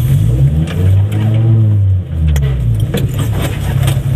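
Single-seater race car engine running at idle, with one rev blip that rises and falls about a second in. Several sharp metallic clicks and rattles come in the second half.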